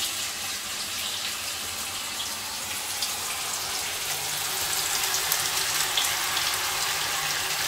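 Marinated chicken pieces sizzling as they go into hot ghee in a kadai, a steady frying hiss.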